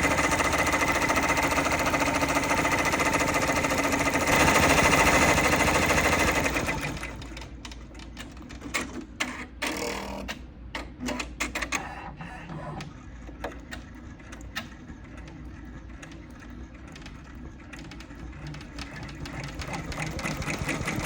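Embroidery machine stitching at speed, a dense, steady rapid needle clatter that gets louder about four seconds in and stops about seven seconds in. After that come scattered light clicks and knocks.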